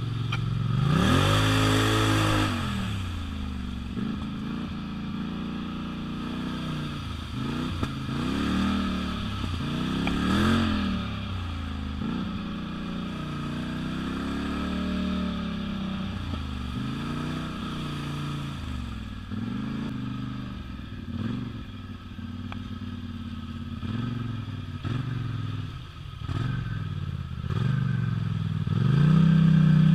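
Polaris Sportsman 1000 Highlifter ATV's engine revving up and down over and over as it is ridden, loudest about a second in, around ten seconds in, and again near the end.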